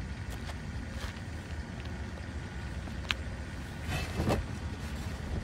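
A spade blade scraping into debris in a curb storm-drain inlet, a short scrape about four seconds in, after a brief click a second earlier. A steady low rumble lies underneath.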